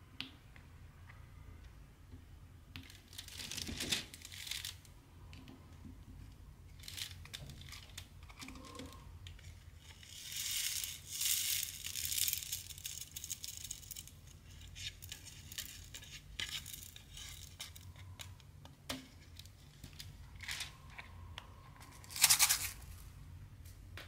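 Diamond-painting materials being handled: crinkling and rustling of thin plastic, with small clicks and rattles of resin drills and plastic containers. It comes in irregular bursts, with a long rustle around the middle and a short, louder burst near the end.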